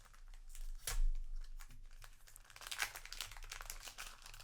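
A trading-card booster pack's wrapper being torn open and crinkled by hand, a run of crackles and rips with the loudest sharp one about a second in.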